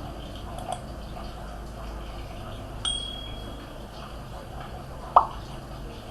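A few light clicks and taps over a steady low hum, one of them followed by a short high metallic ring.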